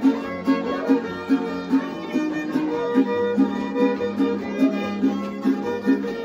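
Live violin and guitar music: a fiddle melody over a steady strummed guitar beat, about two to three strokes a second.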